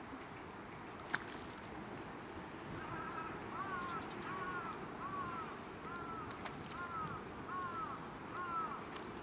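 A bird giving a series of about eight short, arched calls, evenly spaced at roughly three every two seconds, over a steady hiss of wind and water. A single sharp click sounds about a second in.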